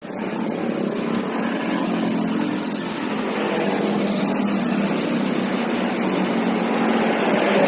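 A car engine with its air-conditioning compressor running steadily.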